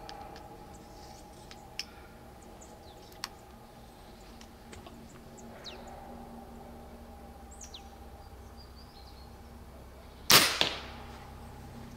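Low-power airgun arrow launcher firing a light arrow: one sharp shot about ten seconds in, with a short tail of noise after it.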